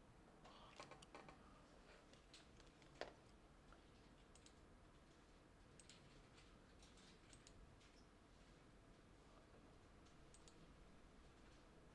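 Near silence: quiet room tone with a few faint scattered clicks, a small cluster near the start and a single sharper click about three seconds in.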